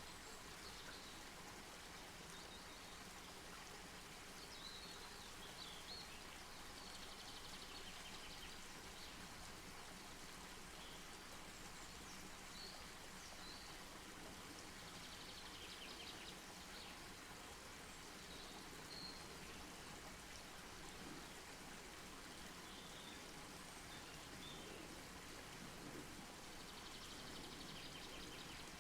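Wood campfire burning faintly: a steady hiss with scattered small crackles and pops.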